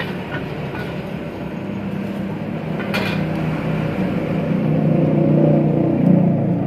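Gas wok burner running with a steady low rumble that grows somewhat louder toward the end. About three seconds in, a metal wok spatula clanks once against the wok.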